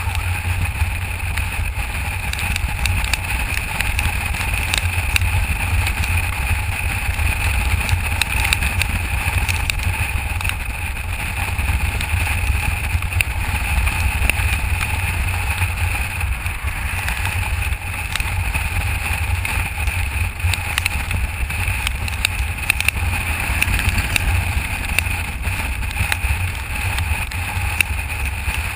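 Steady wind rush buffeting the microphone of a camera mounted on a moving motorcycle, over the low rumble of the bike riding at road speed.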